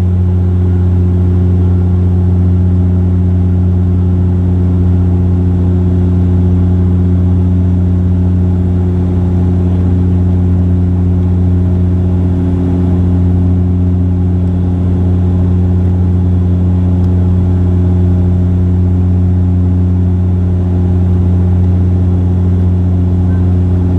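Steady drone of a Bombardier Dash 8-Q400's turboprop engines and propellers heard inside the cabin after takeoff: a loud, deep, even hum with evenly spaced overtones above it, unchanging throughout.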